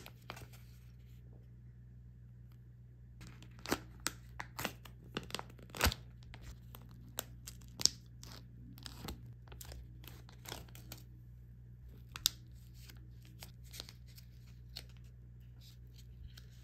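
Plastic film wrapper of a packaged onigiri (rice ball) being torn open along its strip and peeled off by hand: a run of sharp crinkles and tearing snaps starting about three seconds in, loudest over the next few seconds, then lighter crinkling that dies away near the end.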